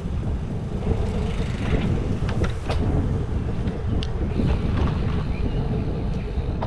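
Riding noise from a gravel bike in motion: wind rumbling on the action camera's microphone and tyre noise, with a few sharp clicks and rattles from the bike.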